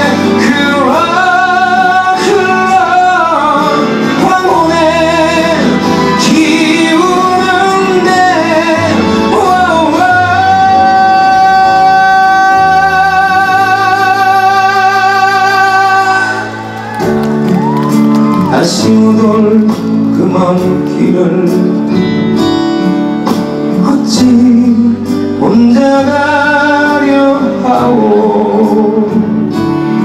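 A man singing a song live into a microphone, accompanied by acoustic guitar. About ten seconds in he holds one long note for some six seconds, then carries on with the melody.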